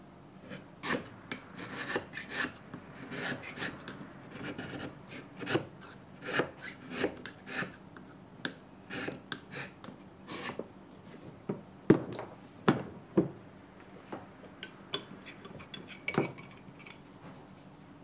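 Shinogi nomi (triangular Japanese chisel) paring thin shavings from the inside of the blade opening of an oak plane block by hand: a series of short, irregular scraping strokes, with a few sharper clicks a little past the middle.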